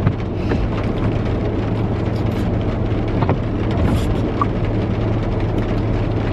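Heavy rain drumming on a car's roof, heard from inside the car, over the steady low hum of the running car.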